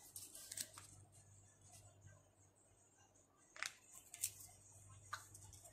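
Near silence: room tone with a faint low hum and a few short, soft clicks in the second half.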